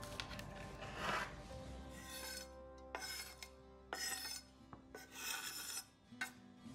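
A series of about six short rasping, scraping strokes, the sound of food preparation in a kitchen, over faint background music with held notes.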